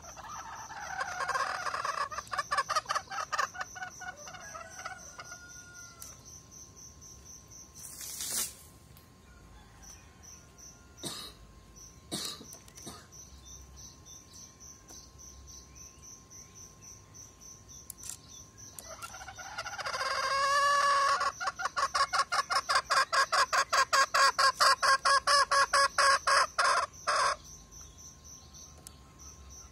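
Male green junglefowl decoy rooster calling in two bouts: a shorter one at the start, and a longer one about two-thirds of the way in that ends in a fast run of pulses. There are a few short knocks between the bouts, and insects trill steadily behind.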